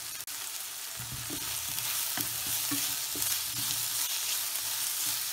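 Sliced onions and curry leaves frying in oil in a non-stick pan with a steady sizzle. From about a second in, a wooden spatula stirs and scrapes against the pan in irregular strokes.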